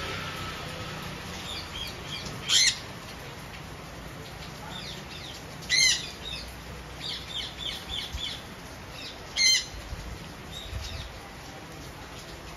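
Indian ringneck parakeets calling: three loud, harsh screeches roughly three and a half seconds apart, with softer chirps between them and wings flapping as the birds fly about the cage.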